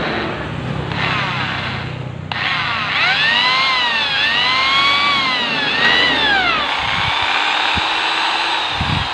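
Electric hand drill boring into a metal carburetor body held in a vise. The drill's motor whine rises and falls in pitch several times through the middle, then runs steady until it stops at the end.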